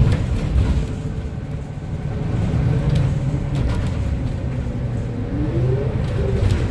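Inside a 2025 Gillig BRT 40-foot CNG transit bus on the move: its natural-gas engine and drivetrain run with a steady low rumble and occasional rattles. A whine rises in pitch near the end as the bus picks up speed.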